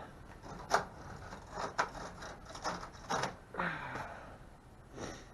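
Hand tools clicking and ratcheting against metal as a microwave oven is taken apart: scattered sharp clicks and short rattles.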